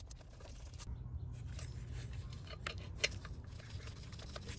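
Faint small metal clicks and rustling of gloved hands starting a nut by hand on an intake plenum stud, with one sharper click about three seconds in.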